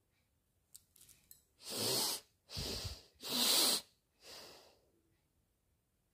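A woman sniffing hard through her nose four times, each sniff a noisy rush of air about half a second long, the third the loudest and the last fainter. A few faint clicks come just before the first sniff.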